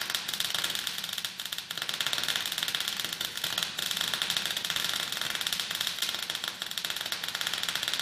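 A fast, steady clatter of dense clicks, thin and bright with almost no low end.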